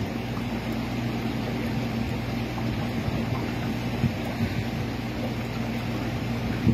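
Steady hum of aquarium filter and air pumps with water bubbling, and a few faint clicks.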